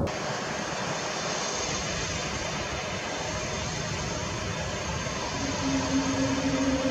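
Jet airliner engines running: a steady rushing noise, joined about five and a half seconds in by a low steady hum.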